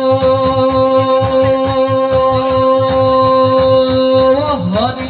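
Bhaona devotional music: a singer holds one long steady note over an even beat of khol drums and cymbal strokes, and about four seconds in the voice bends and slides in pitch.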